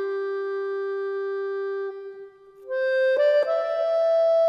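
Background music of slow, long-held notes. About two seconds in, a note fades away into a short gap, then a higher note comes in.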